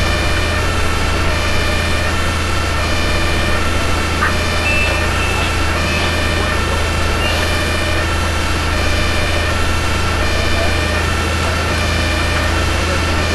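Two-tone emergency-vehicle siren sounding continuously, alternating a higher and a lower note in a steady repeating pattern, over the steady low drone of running engines.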